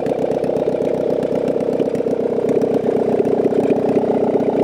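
1993 Saturn SW2's 1.9-litre four-cylinder engine idling with no exhaust manifold or header, its exhaust pulses coming straight out of the open ports as a steady, rapid, ridiculously loud putter.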